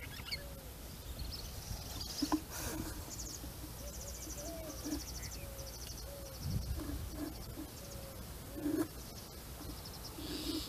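Outdoor birdsong: short chirps and repeated rapid high trills from small birds, with soft low calls underneath.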